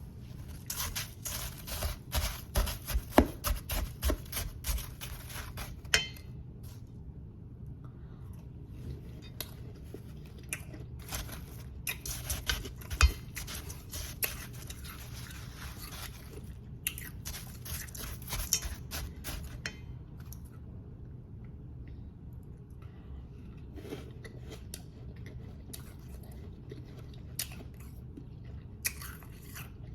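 Powdery, frosty ice being bitten and chewed close to the microphone: dense crisp crunching in several bursts, with short pauses between.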